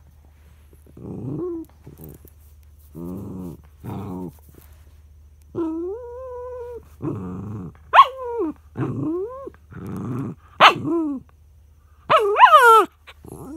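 Small white curly-coated dog throwing a frustrated tantrum: a string of short growls and whines, with a long held whine about halfway through, sharp barks around eight and eleven seconds in, and a loud wavering howl near the end.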